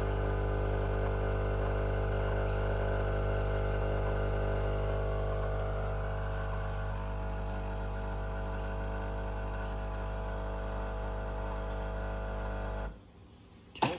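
Breville Barista Pro espresso machine's vibratory pump humming steadily while it pulls a single shot of espresso, stopping abruptly near the end as the shot finishes. A sharp click follows about a second later.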